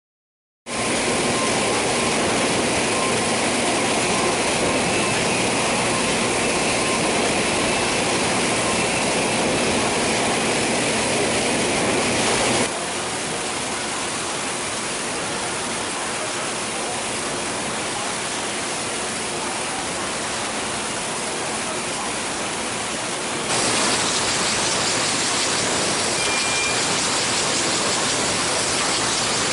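Steady, even machinery noise from a cup filling and sealing line, with a faint high whine in the first part. The noise drops in level about halfway through and rises again later.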